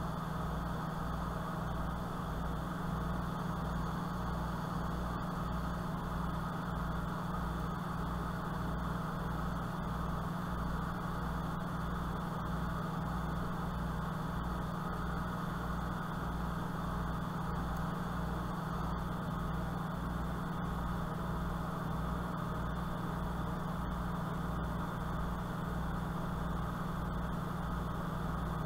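Steady machine hum with a hiss above it and a slow, even pulsing in the bass, about one and a half beats a second, unchanging throughout.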